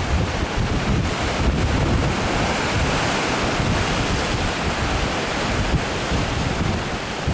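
Wind buffeting the microphone with a gusty low rumble, over the steady hiss of waves washing.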